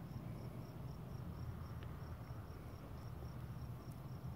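A cricket chirping in even, high-pitched pulses, a few a second, over a low steady hum.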